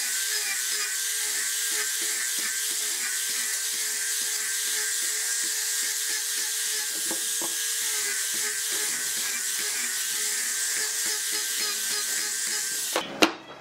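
Electric angle grinder with a sanding disc running steadily at full speed, sanding the edge of a pine board: a constant motor whine over a hiss of abrasive on wood. It cuts off about a second before the end, followed by a brief sharp knock.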